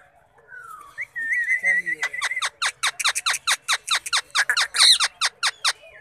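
Indian ringneck parakeet calling: a short falling whistle and a wavering whistled note, then a rapid run of sharp, high, downward-sweeping chirps, about five a second, lasting nearly four seconds.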